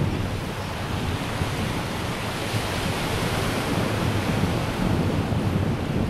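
Waves breaking on a sandy beach, a steady wash of surf, with wind buffeting the microphone in a fluttering low rumble.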